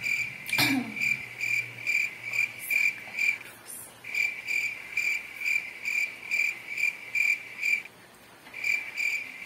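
A cricket chirping in a steady run of short, even chirps, about two or three a second, pausing briefly twice. A short swish comes about half a second in.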